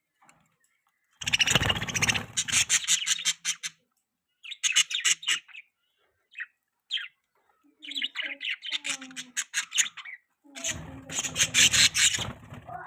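Budgies chirping in several bursts of rapid, buzzy chatter, with a few short single chirps between the bursts.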